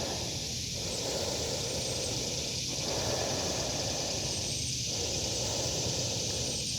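Cicadas droning steadily in a continuous chorus, with a lower rushing haze that dips about every two seconds and a couple of faint high chirps.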